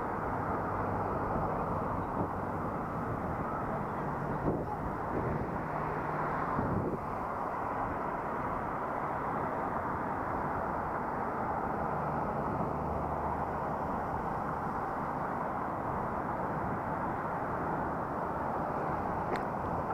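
Steady wind and road noise picked up by a helmet-mounted action camera during a ride, with a faint low hum that comes and goes.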